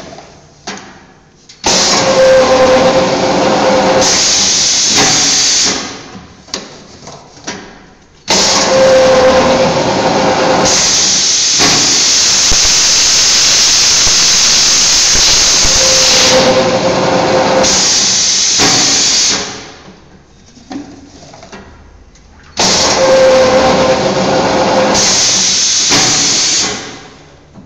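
Adhesive tape slitting machine running in three cutting cycles: loud steady hissing as the spindle turns the tape log against the rotary knives, each cycle opening with a brief steady tone. The longest cycle lasts about eleven seconds, and light clicks fall in the short pauses between cycles.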